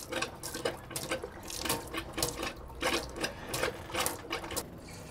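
Galley foot pump worked in quick strokes, about three a second, each sending a spurt of water from the sink's pump spout, over the steady run of the faucet into a stainless steel sink; the pumping stops near the end. The boat's freshwater tanks are being pumped empty.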